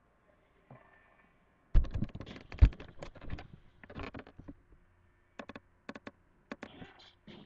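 Handling noise: irregular knocks and clicks, with two loud thumps about two seconds in and scattered short clicks after.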